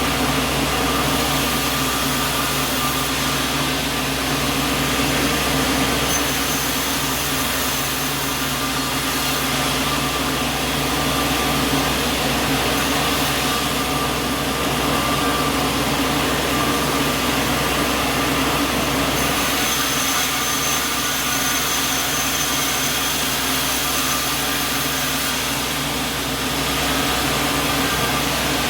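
Small sawmill running steadily, a continuous machine noise with a motor hum underneath.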